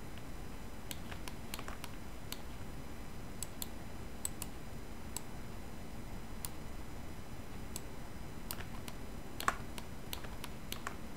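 Scattered, irregular clicks of a computer mouse and keyboard, with one louder click near the end, over a faint steady hiss.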